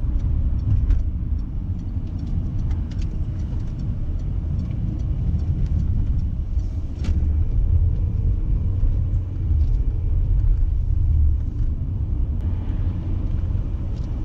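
Road noise of a moving car heard from inside: a steady low rumble of engine and tyres, with a few light clicks.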